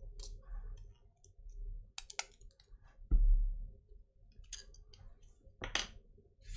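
Small 3D-printed plastic reflector parts clicking and tapping as they are handled and swapped on their plastic mount, a few separate clicks, with one heavier knock on the metal workbench about three seconds in.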